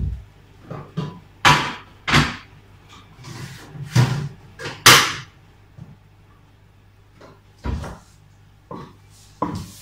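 Kitchen work at the counter: an irregular string of sharp knocks and clacks, seven or eight in all, the loudest just past the middle, then a quiet gap of about two seconds before two more.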